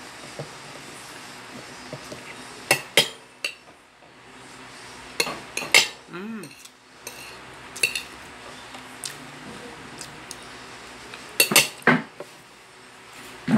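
Metal spoon clinking and scraping against a plate as food is scooped up, in several short clusters of clinks.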